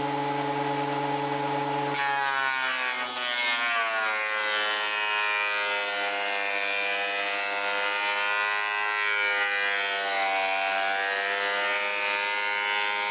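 Fujiyama PP9012 bench planer (thicknesser) running steadily, then from about two seconds in planing a board: the motor's pitch drops as it takes the load and the cutting adds a steady hiss over the motor hum.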